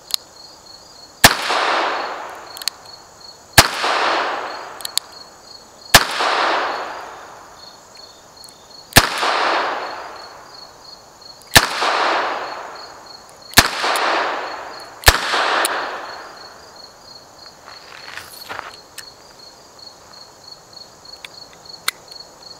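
Taurus revolver firing seven single shots, spaced about two to three seconds apart, each followed by an echo that fades over a couple of seconds. After the last shot come a few light clicks of the gun being handled, over a steady chirping of insects.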